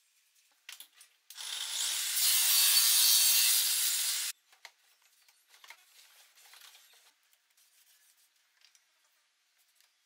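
Sandpaper rubbed by hand along the edge of a solid wooden bird feeder. It makes a continuous scratchy hiss for about three seconds and then cuts off sharply. A few faint taps and clicks follow.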